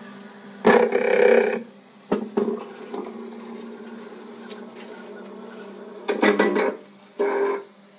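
Motorized film-loop rig, a tape-player drive feeding a hand-drawn loop through an analog projector, running with a steady hum. Over the hum come scraping, rubbing bursts of up to about a second as the loop is pulled round: one about a second in, two short ones a little later, and two more near the end.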